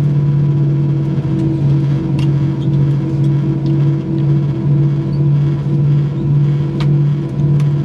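Airbus A320 taxiing, heard from inside the cabin: a steady engine drone with a low hum that swells and fades about once a second.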